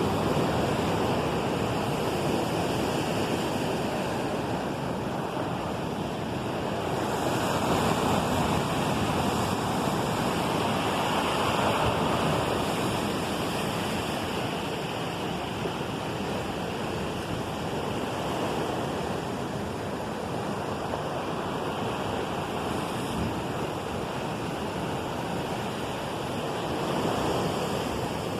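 Steady rushing of water, swelling and easing every few seconds.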